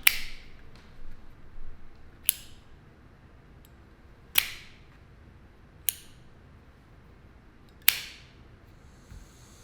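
A series of five sharp clicks, each dying away with a brief ring, about two seconds apart.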